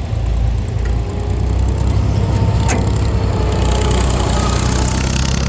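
Diesel engine running steadily with a deep low rumble, with one sharp knock a little before halfway.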